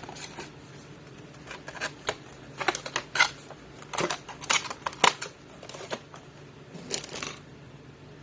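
Small objects and plastic packaging being handled: irregular sharp clicks and short crinkling rustles, busiest in the middle, over a faint steady hum.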